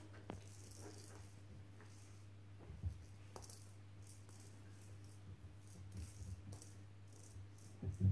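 Light rattling and tapping of a string wand toy's woven ball as a kitten bats and pulls at it on a tile floor, with a knock about three seconds in and a louder one just before the end.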